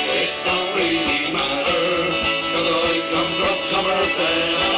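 Live band music in a folk-country style, loud and continuous.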